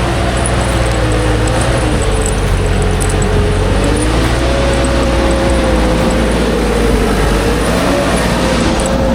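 Engine and machinery of a heavy log-processing machine running steadily under load, the pitch drifting slowly up and down.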